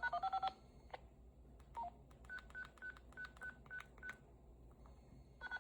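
A fast string of DTMF tones ends about half a second in, as a digit command is keyed in. It is followed by about eight short, evenly spaced high beeps with small clicks, then another quick burst of DTMF tones near the end.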